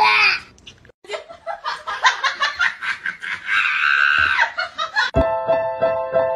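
Laughter in short, choppy bursts. About five seconds in it cuts abruptly to digital piano notes sounding in a steady repeated pattern.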